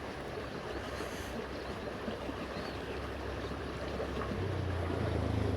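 Steady rushing outdoor noise, with a low engine hum coming in about four seconds in and growing louder.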